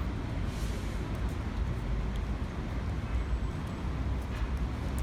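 Steady city street ambience: a low rumble of road traffic with faint scattered clicks.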